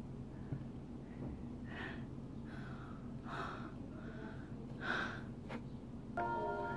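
A boy's faint, short breathy vocal sounds, four or five soft exhalations a second or so apart. Music comes in near the end.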